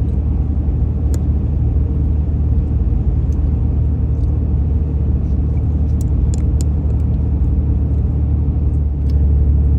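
Steady low drone of a vehicle's engine and road noise heard from inside the cab while driving, growing a little louder about nine seconds in.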